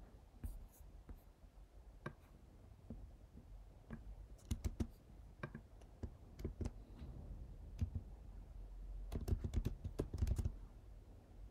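Computer keyboard typing: scattered single keystrokes, then a quick run of key presses near the end.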